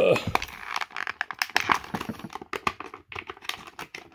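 Clear plastic blister packaging being handled, crinkling and crackling in a rapid, irregular run of sharp clicks.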